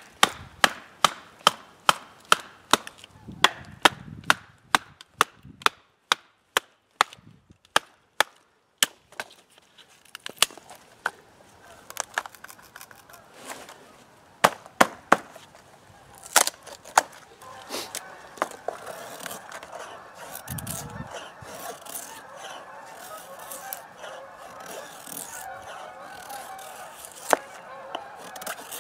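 A wooden baton striking the spine of a bushcraft knife to split a stick lengthwise: a quick run of sharp knocks, about two or three a second, for the first nine seconds, then a few scattered cracks of splitting wood. From a little past halfway, geese honk steadily in the background.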